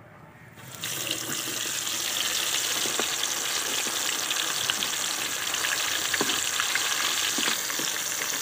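Hot oil in a karahi bursts into a sizzle about a second in as a flour-battered chicken leg goes in, then keeps up a steady bubbling sizzle with scattered crackles while the leg deep-fries.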